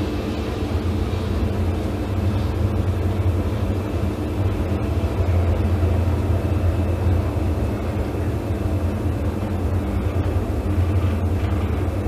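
Toshiba traction lift car travelling in its shaft, heard from inside the car: a steady low rumble with a constant hum.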